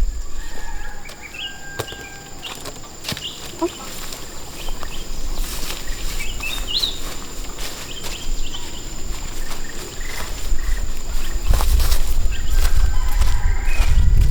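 Farmyard ambience: scattered bird chirps and calls, including chickens, over a faint steady high whine and a low rumble that grows louder near the end.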